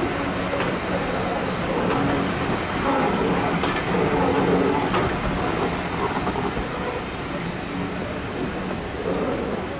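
Heritage railway train running: a steady rumble with some low steady tones, and a few sharp clicks over several seconds.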